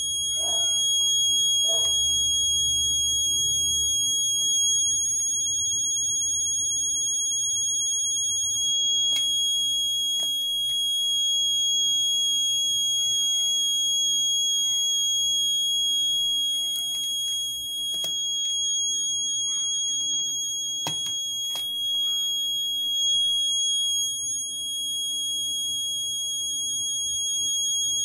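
Piezo buzzer alarm giving a steady high-pitched tone, the alarm of a vehicle anti-theft system triggered by the key sensor. A few faint clicks are heard over it.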